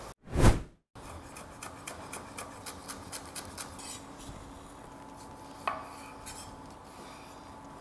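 A brief loud thump about half a second in. Then a chef's knife chops scallions on a wooden cutting board in quick knocks, about four a second, and slows to fewer, slicing cuts as it moves on to a lime.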